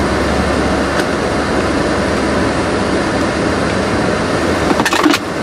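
Steady running noise inside a car cabin, a low hum under an even hiss, with a few sharp clicks and a brief rustle near the end.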